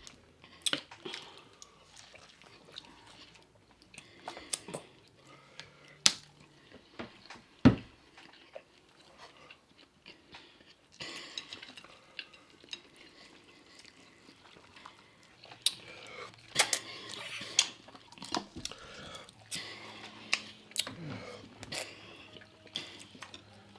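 Chewing and biting into food, with irregular sharp clicks and crunches and one louder knock about eight seconds in.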